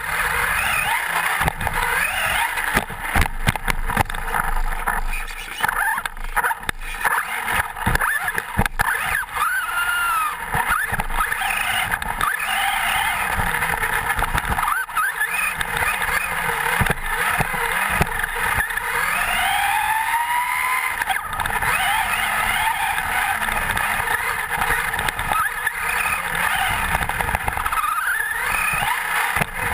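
Traxxas Slash 4x4 RC truck's electric motor and drivetrain, recorded on board, whining up and down in pitch with the throttle. Many sharp knocks and rattles from bumps and landings on the dirt run through it. The truck runs on a 6-cell NiMH pack.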